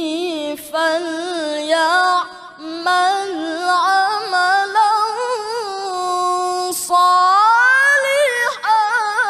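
A male qari reciting the Qur'an in melodic tilawah style, drawing out long ornamented vowels with rapid turns of pitch in a few held phrases, then climbing higher in a long rising line near the end.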